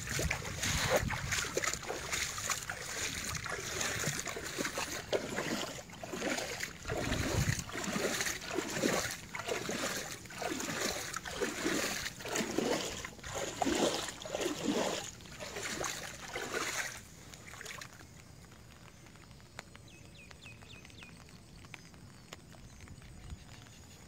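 Footsteps wading through shallow floodwater, each step a slosh and splash at a steady walking pace, until the walking stops about three-quarters of the way through and it goes much quieter.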